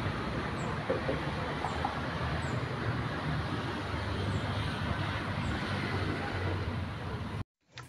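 Steady rumble of road traffic, which cuts off abruptly near the end.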